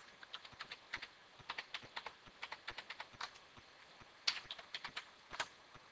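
Typing on a computer keyboard: a quick, irregular run of faint key clicks, with a few louder keystrokes in the last two seconds.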